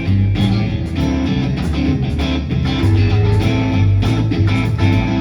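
Instrumental music from the song's band, led by strummed guitar over bass notes, between sung lines.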